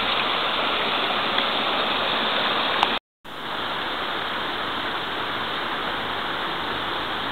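Steady rush of running water, as from a stream or waterfall. It drops out for a moment about three seconds in and then carries on slightly quieter.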